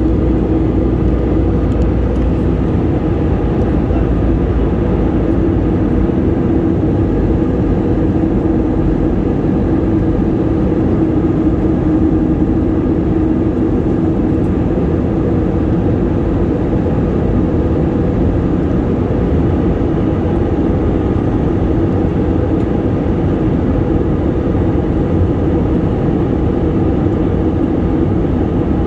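Airplane engines running with a steady, unchanging drone and a constant hum.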